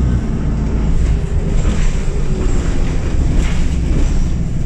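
VDL Wright Pulsar Gemini double-decker bus engine and blown exhaust running under way, a loud steady low drone heard from inside the upper deck, with some higher rattling partway through.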